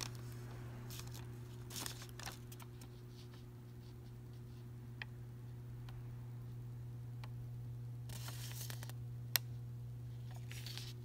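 A long paper till receipt being handled and unrolled: soft paper rustles about two seconds in and again around eight to nine seconds, with a sharp click just after. A steady low hum sits underneath.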